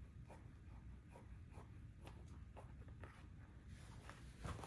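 Very faint scratchy rubbing and soft ticks, about two a second, as a patent-leather platform slingback pump is jiggled on the toes and slipped back onto the foot. A slightly louder scuff comes near the end.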